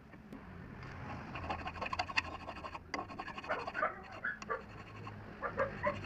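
Hand file rasping back and forth across a small metal part clamped in a vise, in short uneven strokes with faint squeaks.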